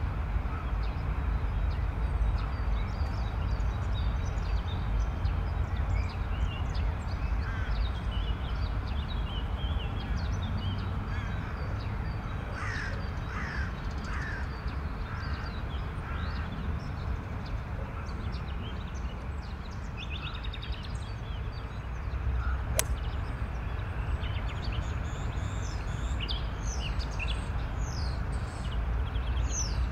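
Outdoor ambience of birds calling and chirping, many short calls scattered throughout, over a steady low rumble. There is a single sharp click about three-quarters of the way through.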